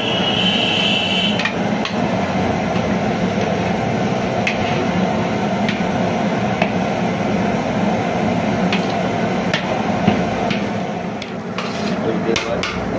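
Long-handled perforated metal skimmer knocking and scraping against a large aluminium biryani pot as the rice and chicken are stirred so the rice does not stick to the bottom, a scattered knock every second or so, bunching near the end. Underneath is a steady roar from the gas burner on high flame.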